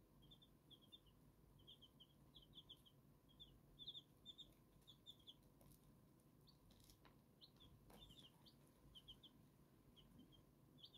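Silver Laced Wyandotte chicks peeping softly: short, high peeps in quick twos and threes, scattered all through.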